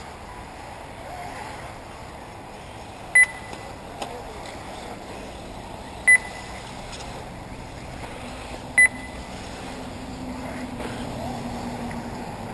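Three short, loud, high electronic beeps about three seconds apart from a race lap-timing system, over steady background noise.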